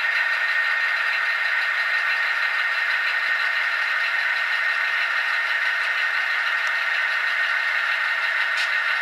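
HO-scale GP9 models' DCC sound decoders, a LokSound and a Tsunami, playing diesel prime mover sound through small onboard speakers as the locomotives run slowly. The sound is steady and thin, with no deep bass.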